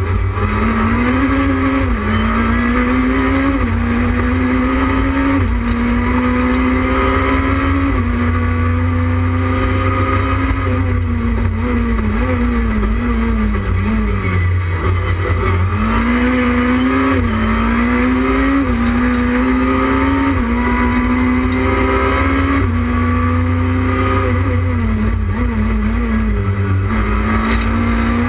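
Renault Clio 3 rally car's four-cylinder engine, heard from inside the cabin, at full throttle: the pitch climbs and drops sharply again and again as it shifts up through the gears. About halfway through the pitch falls away as it slows for a bend, then rises again under hard acceleration, over a steady low road and cabin rumble.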